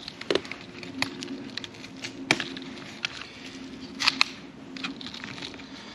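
Handling noises of potting work: scattered clicks, scrapes and knocks as a large succulent clump and its pot are handled, the sharpest about two seconds in and a double knock about four seconds in, over a steady low hum.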